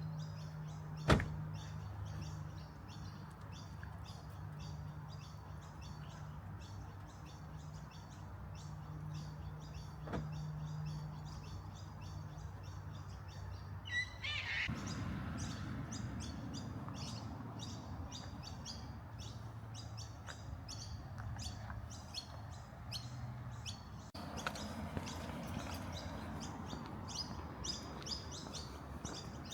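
Birds chirping over and over, short quick calls, with a low steady hum under the first half and one sharp knock about a second in.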